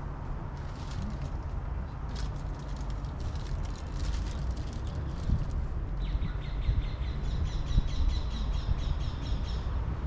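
Small birds chirping, then singing a fast, evenly repeated trill from about six seconds in, over a steady low rumble.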